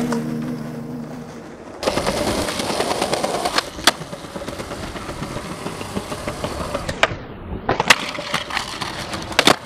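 Skateboard wheels rolling on concrete, with sharp clacks of the board popping and landing a few times, and the board sliding on a concrete ledge.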